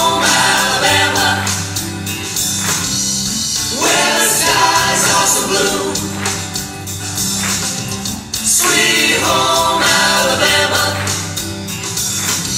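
A mixed vocal group sings 1970s pop in harmony into handheld microphones, over instrumental backing with a steady bass line.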